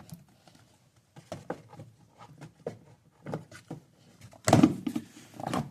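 Scattered small clicks and rubbing as a new engine air filter is handled and seated in the airbox, then a loud clunk about four and a half seconds in.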